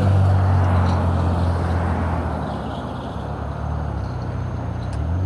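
Steady low engine hum over a wash of road-like noise, as from a running vehicle. It eases slightly midway and swells again near the end.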